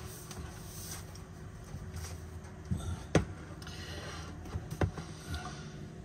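Handling and movement noise as a laptop is picked up and carried: a couple of sharp knocks, one about three seconds in and another just before five seconds, over a steady low hum.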